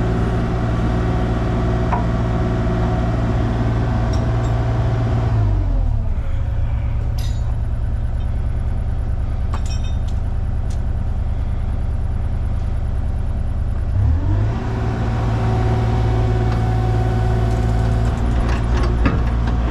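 Excavator's diesel engine running steadily. About six seconds in its pitch drops to a lower, quieter speed, and near fourteen seconds it rises back up.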